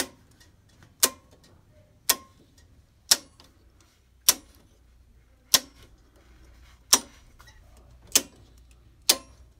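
Circuit breakers in a home electrical panel being switched on one after another, each giving a sharp snap-click, nine clicks spaced about a second apart. The circuits are being brought back up one at a time on portable-generator power.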